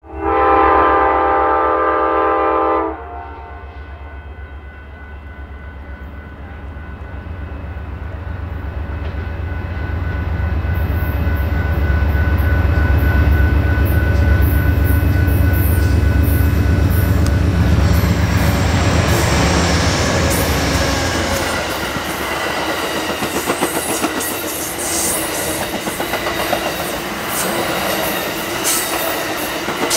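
Amtrak passenger train passing: a multi-note air horn sounds for about three seconds, then two GE Genesis diesel locomotives approach and go by with a deep engine drone that builds and stops about twenty seconds in. Double-deck Superliner cars then roll past with rapid rail clicks and wheel noise.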